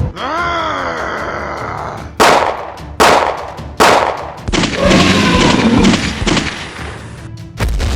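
A short swooping tone, then three sharp bangs under a second apart, then a rough, noisy stretch.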